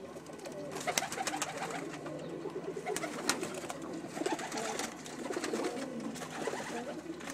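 Several Dutch High Flyer pigeons cooing, their low wavering coos overlapping without a break, with scattered sharp clicks and taps.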